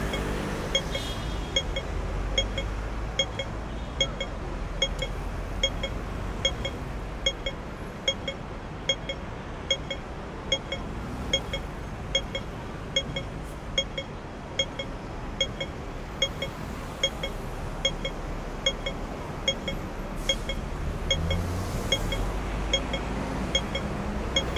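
A pedestrian crossing's audible signal beeping steadily at an even pace over the low rumble of city traffic. A vehicle passes near the end.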